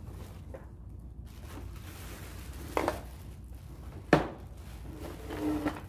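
Hard parts of a new vacuum cleaner being handled during assembly: a knock, then a louder sharp click or clack about four seconds in, followed by a short scrape near the end.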